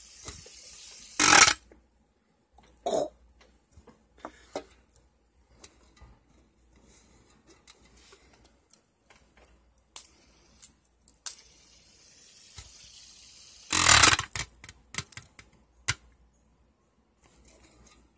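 Handling noise from a fidget spinner and a can: scattered clicks and knocks with a few short scrapes, the loudest about a second in and again around fourteen seconds in, each lasting about half a second.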